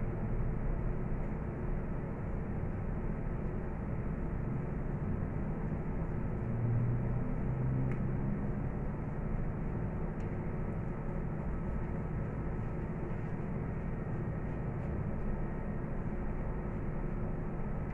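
Steady low hum and rumble of machine-like background noise, with a few faint ticks.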